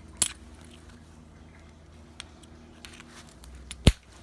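Quik-Latch push-button hood pin latch clicking as the pin is locked in and the button released by hand. There is a sharp click just after the start and a louder one near the end, with a few faint ticks of handling between.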